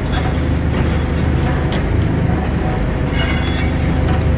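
Diesel engine of a Bobcat telescopic handler running steadily while its extended boom holds a load of blocks, with a few light clinks.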